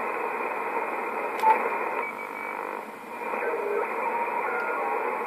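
Yaesu FT-950 HF transceiver's receiver audio in sideband mode: steady band hiss cut off above the voice range, with a few faint brief whistles from off-tune signals. A single sharp click about a second and a half in.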